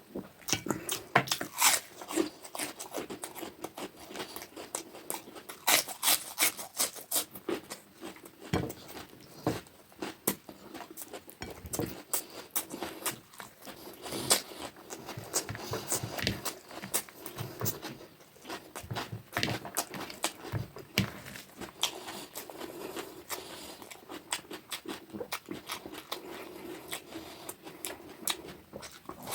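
Close-up eating sounds: steady chewing with many irregular short, wet mouth clicks and smacks while eating fish curry.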